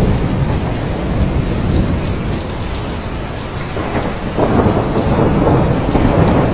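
Steady heavy rain with rolling thunder rumbling underneath; the rumble eases off a little mid-way and swells again after about four seconds.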